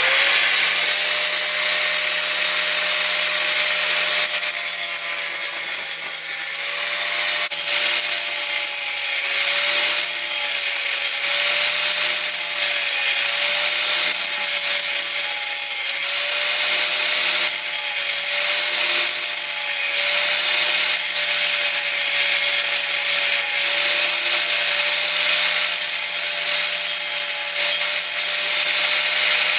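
Metal cutoff tool with an abrasive wheel cutting through 5160 spring steel: a steady high whine over a harsh hiss, running without a break.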